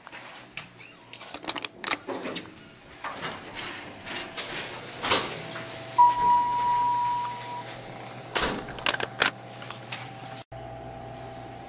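Footsteps, door and handling knocks in a hallway, with one steady electronic beep about six seconds in lasting about a second and a half; after a cut near the end, the steady low hum of an elevator car running.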